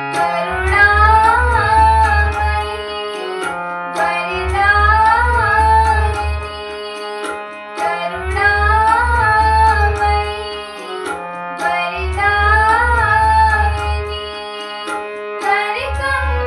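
Indian devotional music: a gliding melody line over a low rhythmic percussion pattern, in phrases that repeat about every four seconds.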